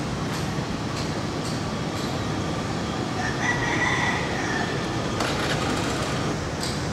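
Steady street and vehicle noise with a brief high-pitched squeal a little over three seconds in, then a short clatter about five seconds in.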